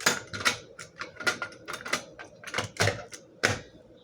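Fire alarm pull station being handled: a run of about a dozen irregular clicks and clacks as its parts are worked.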